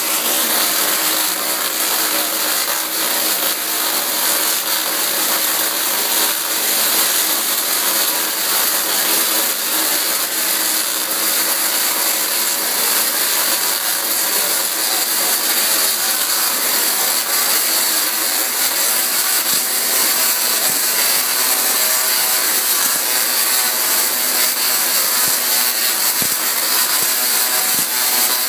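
Tesla coil firing, its sparks arcing off the top with a loud, steady, harsh buzz.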